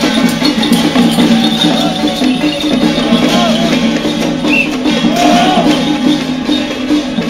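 Lion-dance troupe percussion at a temple procession: drums, gongs and cymbals playing a dense, rapid, steady beat.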